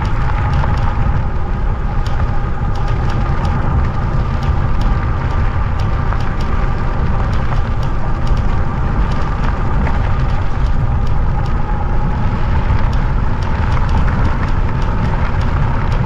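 Wind rushing and buffeting over the microphone while riding a Jasion EB7 2.0 folding e-bike at speed, with steady riding noise and a faint steady whine underneath.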